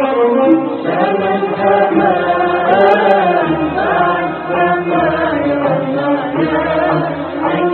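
Arabic music: an ornamented melodic line that bends in pitch, over a low drum beat.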